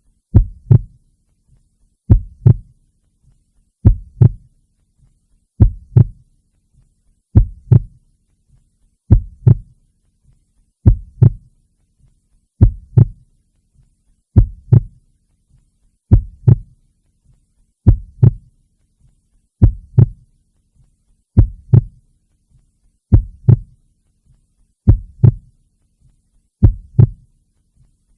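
Slow, steady heartbeat: paired lub-dub beats, a sharp first stroke followed by a deeper thud, repeating about once every one and three-quarter seconds.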